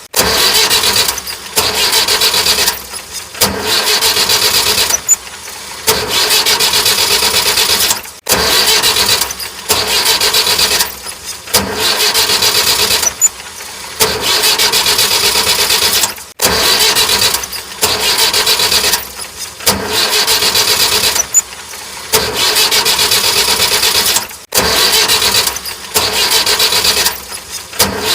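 An engine-like running sound with short breaks, the same pattern repeating about every eight seconds.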